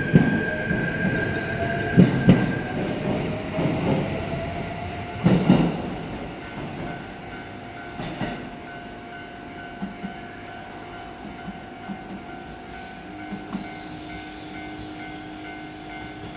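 Shinano Railway SR1 series two-car electric train running, its wheels knocking over rail joints several times in the first five seconds while a whine rises slowly in pitch. The sound then fades to a low, steady hum with a few faint ticks.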